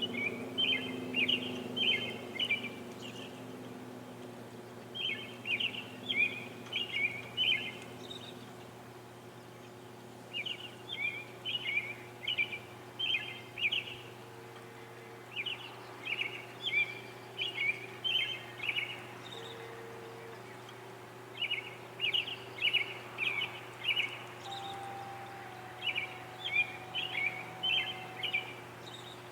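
A songbird singing: about six short phrases of quick, high notes, each lasting a couple of seconds, with pauses of a few seconds between them, over a faint steady hum.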